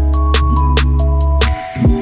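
Music with a drum-machine beat: quick, evenly spaced ticks about five times a second over sustained notes and a deep bass. The bass drops out about three quarters of the way in, and a falling bass slide comes near the end.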